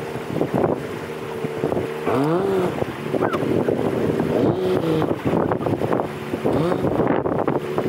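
A vehicle engine running steadily with brief revs: the pitch rises about two seconds in, then steps up and down again around five and six and a half seconds.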